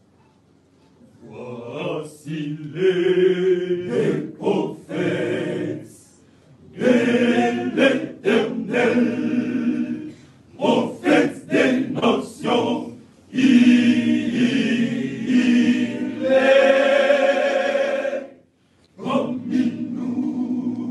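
Men's choir singing a cappella, starting about a second in and going in phrases broken by short pauses.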